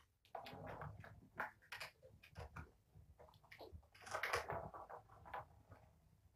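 Kittens scampering and wrestling on a rug: faint scattered light thumps and scuffles, loudest about four seconds in.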